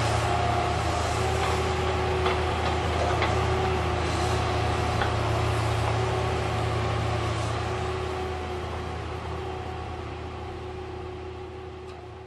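Heavy diesel engine of a log loader at a slasher saw deck, running steadily with a few light knocks. It fades out over the last few seconds.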